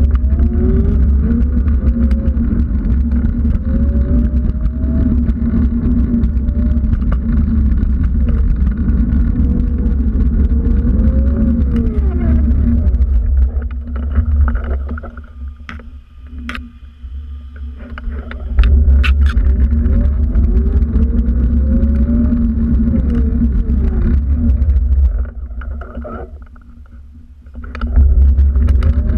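A motor running with a heavy low rumble, its whine rising and falling in pitch again and again as the speed changes. The sound drops away twice for a couple of seconds, with a few sharp clicks in the first lull.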